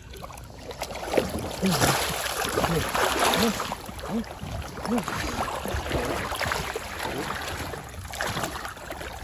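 Water sloshing and splashing as a black Labrador retriever wades through shallow river water with a duck in its mouth and a hunter in waders steps in to take it.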